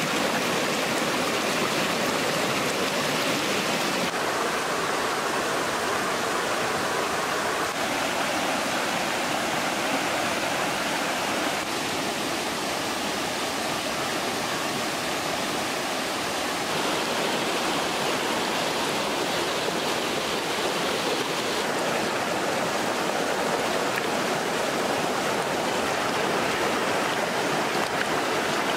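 Fast-flowing stream water rushing over rocks, a steady, full-bodied rush that shifts a little in tone every few seconds.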